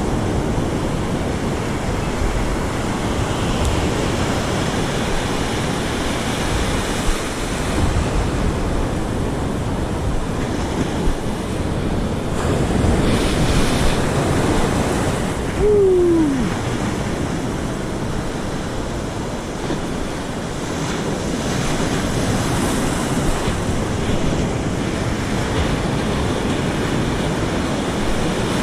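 Ocean surf breaking, with wind buffeting the microphone. About halfway through comes one short tone falling in pitch.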